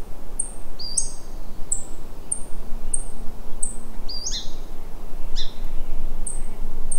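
Birds calling: a thin, high chirp repeated about every half second, with a few louder, lower down-slurred calls, over a steady background hiss.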